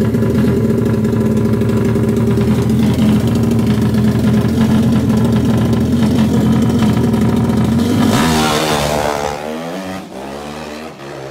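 Four-stroke drag-racing motorcycle held at high revs on the start line, a loud steady drone, then launching about eight seconds in and pulling away down the strip, its engine note rising again and again as it fades.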